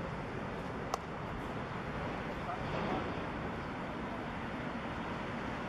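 Airbus A320's twin jet engines at climb thrust, a steady rushing drone heard from the ground as the airliner climbs away, with some wind noise on the microphone. A single sharp click about a second in.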